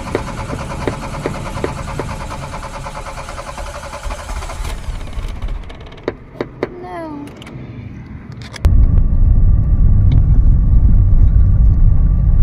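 An old VW Polo's engine labouring unevenly on a hard cold start with the choke pulled out, for about four and a half seconds before it cuts out, with a few sharp clicks. About eight and a half seconds in, the sound jumps to the loud, steady low rumble of the car driving, heard from inside the cabin.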